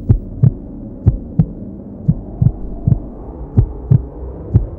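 Heartbeat sound: low double thumps (lub-dub), about one beat a second, over a steady low hum.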